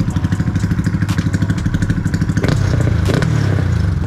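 Honda Wave 125 motorcycle engine idling through an aftermarket H2 stainless exhaust with a rapid, even pulse. About two and a half seconds in, a short throttle blip rises and drops back to idle.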